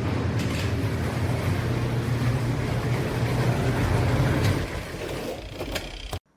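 Compact twin-tub washing machine running: a steady low motor hum over churning water noise. The hum stops about four and a half seconds in and the noise cuts off abruptly near the end.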